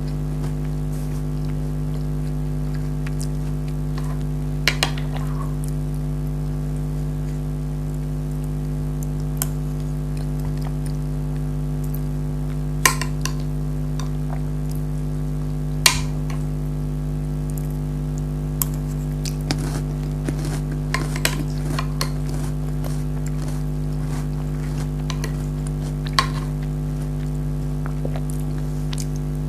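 A spoon now and then clinking and scraping against a bowl while custard is scooped and eaten: scattered sharp clicks, a few in quick pairs and a small cluster a little past the middle. Under them runs a steady low hum.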